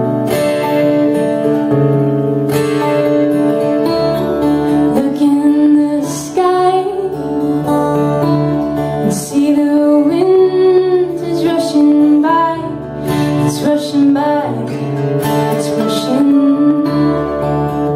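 Two acoustic guitars playing a folk song, with a woman singing over them from about five seconds in.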